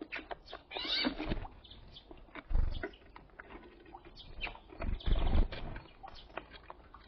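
Small birds at a window feeder: a busy run of sharp clicks and scratches from beaks and feet on the feeder, with a brief chirp about a second in and two heavier thumps, one a third of the way in and one past the middle.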